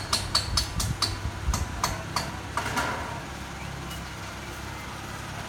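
Hammer blows on the roof's metal solar-panel structure, quick regular strikes about three a second with a ringing top, slowing and stopping about two seconds in. A steady low rumble follows.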